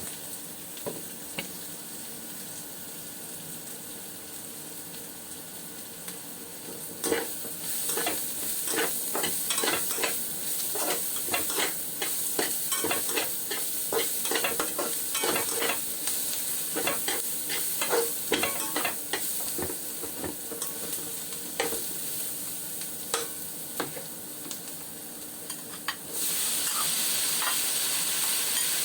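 Food sizzling in hot oil in a pan while being stirred, with quick scrapes and clinks of the spatula against the pan through the middle. About 26 s in, the sizzle suddenly gets louder and stays louder.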